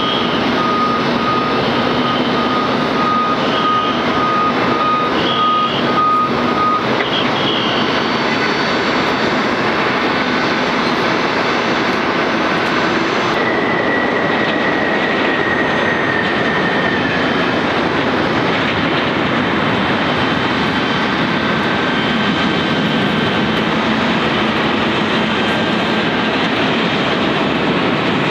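Boeing 747-400 freighter with four General Electric CF6-80C2 turbofans landing and rolling out, a loud steady jet roar. A thin high whine sits on top for the first several seconds. About halfway, another whine comes in and slides down in pitch as the engines spool down on the runway.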